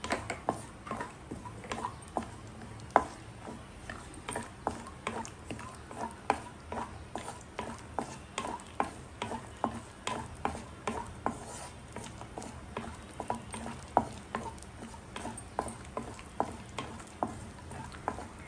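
Wooden spatula stirring cashew pieces frying in a nonstick kadai: a steady light sizzle with the spatula knocking against the pan about twice a second.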